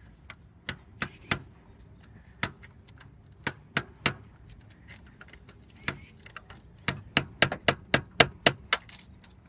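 Hammer driving a screwdriver against a carburetor's mixture-screw cap, trying to knock the cap off: sharp metallic taps, a few scattered at first, then a quicker run of about eight taps near the end.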